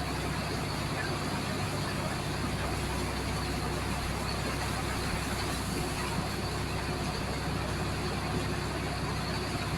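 High-pressure water jet from a heavy-duty hose blasting into compacted sand, a steady rushing noise over the constant low drone of the engine that drives it.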